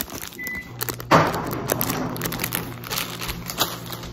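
Plastic snack-chip bag crinkling and rustling as it is handled, loudest in a sharp rustle about a second in. A steady low hum comes in just before that and carries on.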